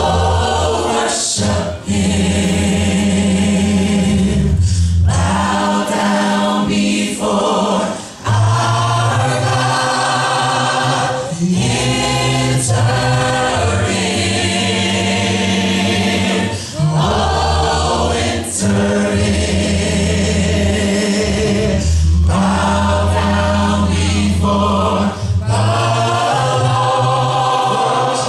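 Live gospel song: a small vocal group singing in harmony into microphones, in phrases over steady low bass notes.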